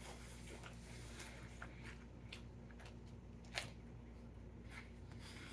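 Faint chewing of a soft sub sandwich: small wet mouth sounds and clicks, with one sharper click a little past halfway.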